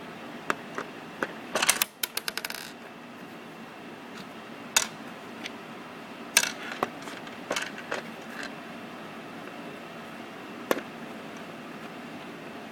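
Small metallic clicks and clinks from unscrewing the bolts on the underside of a car armrest: a fast run of ticks about two seconds in, then single sharp clicks spaced out over the rest of the stretch.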